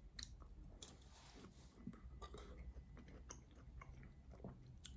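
A bite of pickled gherkin being chewed, quietly and close to the microphone, with scattered small crunches and mouth clicks.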